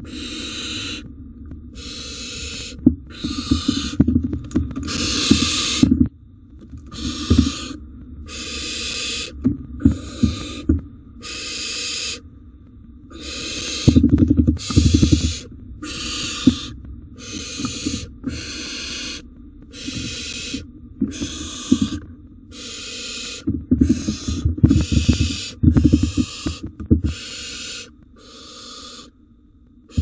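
Barn owl nestlings giving repeated hissing begging calls, about one a second, each call under a second long. Bumps and scuffles of the owlets moving on the nest box floor come in the middle and again later on.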